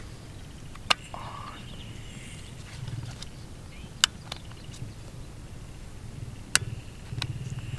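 Several sharp, separate clicks and small handling noises from gear being worked in the hands, over an uneven low rumble and a faint steady high hum.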